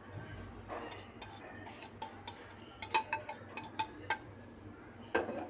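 A metal spoon scraping and tapping on a ceramic plate as cornflour is tipped off it into a glass bowl. Soft scraping throughout, with a handful of sharp clinks in the second half.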